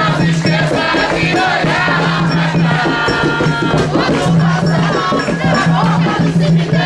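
Many voices chanting and shouting together at a ritual gathering, over shaken rattles, with a low hum that drops in and out.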